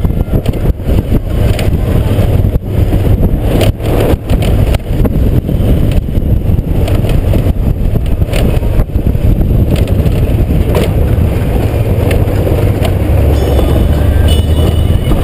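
Honda GoldWing GL1500's flat-six engine running steadily while the bike rolls over a rough gravel track, with frequent knocks and rattles from the stones and bumps, most of them in the first few seconds. Wind rumbles on the helmet-side microphone.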